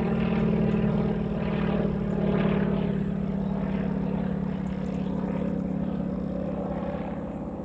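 Yak-52's nine-cylinder M-14P radial engine and propeller droning in flight at a steady pitch, fading gradually as the aircraft pulls away.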